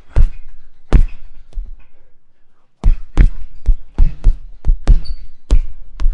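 Punching bag being hit, a series of dull thuds: a few blows, a pause of about a second, then a quicker flurry of about eight hits.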